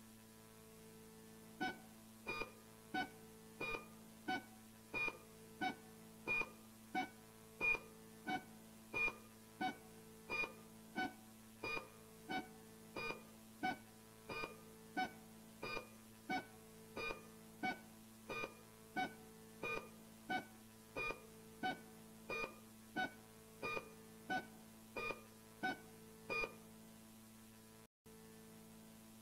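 A short electronic beep repeating evenly about one and a half times a second over a steady low hum, stopping a few seconds before the end.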